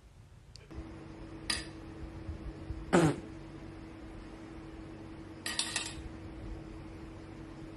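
Rings dropped onto a table, metal clinking and rattling three times: a clink, a louder clink a second and a half later, then a short rattle. A steady low hum runs underneath.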